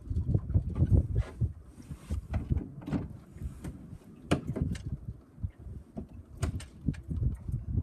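Wind buffeting the microphone aboard a sailboat on choppy lake water, as a gusty low rumble, with scattered sharp knocks and slaps from the boat and the water against it.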